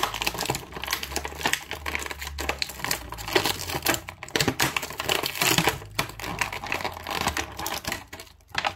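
Plastic action-figure packaging crinkling and clicking as it is handled: a dense run of small taps and rustles that eases off near the end.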